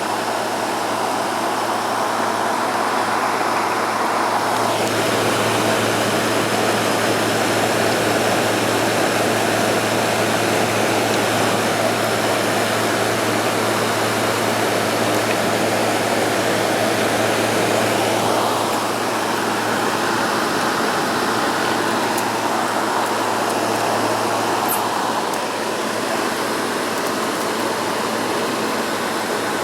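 Frigidaire window air conditioner running with its compressor on: a steady rush of fan air over a low hum, the unit cooling as it should. The rush changes in tone about five seconds in and again past halfway.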